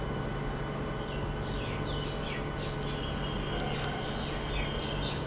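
Birds chirping in a quick series of short falling calls over a steady low hum.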